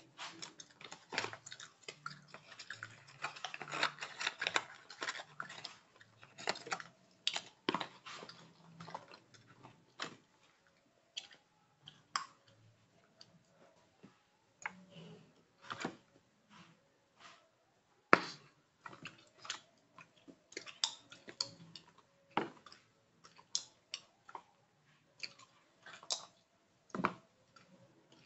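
Gum chewing close to the microphone: irregular sharp clicks and smacks throughout, with a short stretch of rustling a few seconds in.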